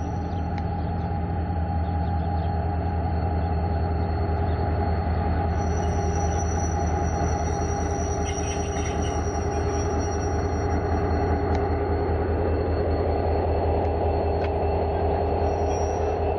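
V/Line A class diesel-electric locomotive A66 moving slowly past at close range, its EMD two-stroke diesel engine giving a steady low drone that grows slightly louder as it nears. A faint high-pitched squeal comes in for several seconds in the middle and briefly again near the end.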